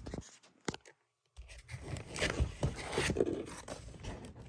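Handling noise as things are moved about on a surface: a sharp click, then scraping and rustling with small knocks.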